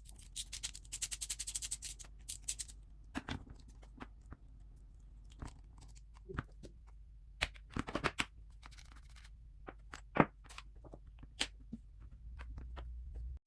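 Hands handling small parts and packaging: a quick run of crisp, rapid clicks for about two seconds near the start, then scattered clicks, knocks and rustles.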